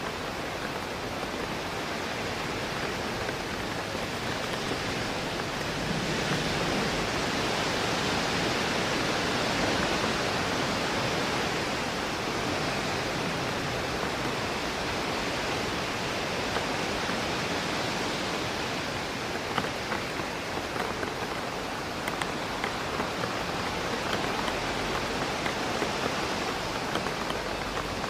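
Steady rain with wind rushing through trees, swelling for a few seconds about a fifth of the way in. In the second half, single raindrops tap sharply against the window.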